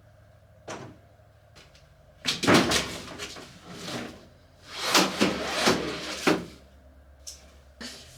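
Knocking and clattering of hard household objects being handled, in two busy bursts about two and a half and five seconds in.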